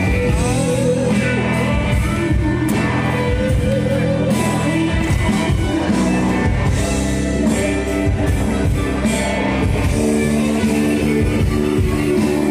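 Loud live band music: a singer over a rock-style backing with guitar.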